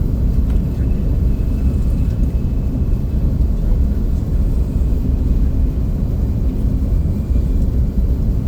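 Steady low rumble of a KTX high-speed train running, heard from inside the passenger cabin.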